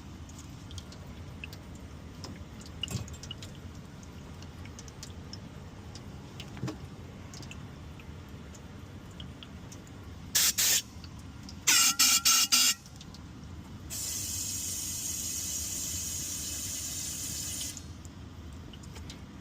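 Spraying while the clogged condensate drain line is being cleaned: a short spray burst about ten seconds in, a quick run of about five short squirts, then a steady spray hiss lasting about four seconds. A low steady background noise runs underneath.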